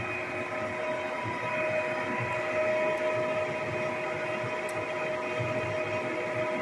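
A large manual lathe running steadily with a bent lift axle arm spinning in it: a steady whine of several tones over a low rumble.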